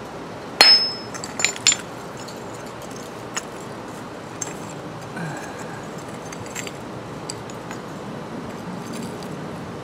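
A steel claw hammer strikes a geode wrapped in a cloth bag on concrete: one hard blow about half a second in with a brief metallic ring, then two lighter knocks, cracking the rock open. A few faint clicks and clinks follow as the broken pieces are handled in the bag.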